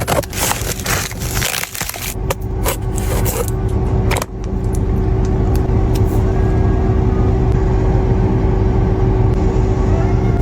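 Sharp clicks and scrapes of small objects being handled for about the first four seconds, then a steady low rumble of a car running, with a faint constant hum inside the cabin.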